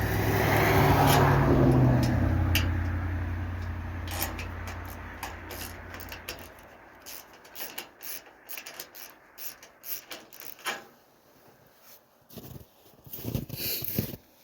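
A vehicle passes by, its low, falling-pitched sound loudest about a second or two in and fading out by about six seconds. Then scattered light clicks and knocks, like small metal hardware being handled.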